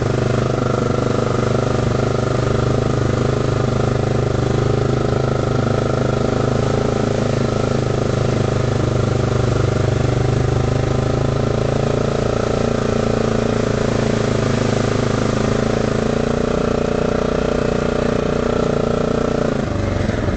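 Quad bike (ATV) engine running at steady revs under way, heard from on board. Its note shifts about halfway through and drops near the end.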